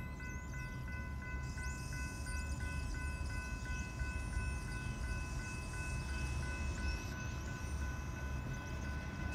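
Railroad crossing warning bell ringing rapidly and steadily, about three strokes a second, over a steady low rumble.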